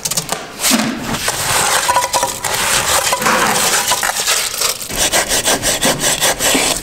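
A hand tool scraping and rubbing in repeated rough strokes, settling into a steadier rhythm of about three strokes a second in the second half, as wet concrete is worked into the cores of a cinder-block wall.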